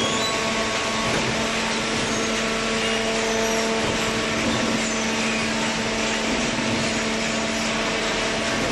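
Hydraulic paper baler's electric motor and pump running steadily: a constant hum with a few fixed tones over even machine noise.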